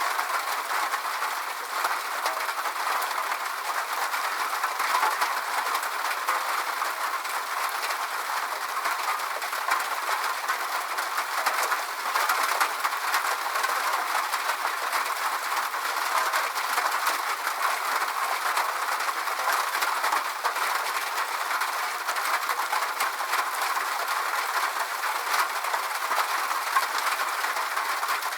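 Steady rain falling: an even hiss with many small, fine drop ticks and no deep rumble.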